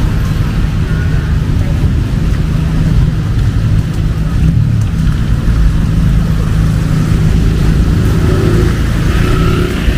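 Street traffic in the rain: a motor vehicle's engine running close by with a steady low rumble, over the hiss of rain and a wet road.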